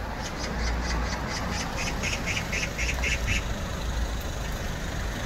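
Street noise with a steady low rumble. Over it, for about the first three seconds, comes a rapid, even run of short, harsh, high-pitched pips, about four a second, that then stops.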